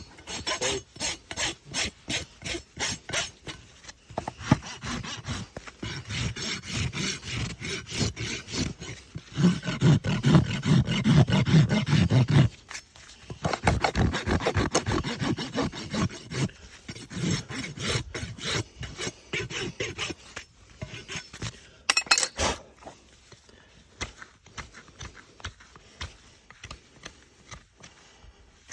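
Farrier's rasp filing a horse's hoof in repeated scraping strokes, thinning out to scattered scrapes over the last several seconds.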